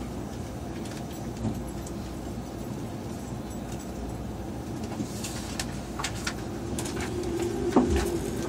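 Inside a crowded JR Yamanote Line commuter train car: the train's steady low rumble, with a few light clicks and knocks in the second half.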